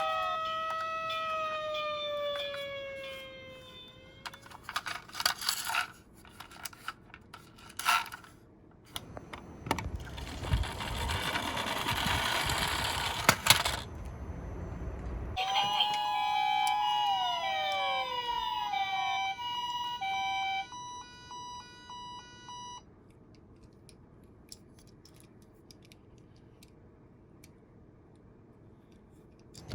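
Toy electronic sirens winding down in falling, multi-tone glides, followed by clicks and knocks of the toy cars. A few seconds of rushing noise come next, then another electronic siren sequence of falling glides with steady beeping tones, cut off well before the end.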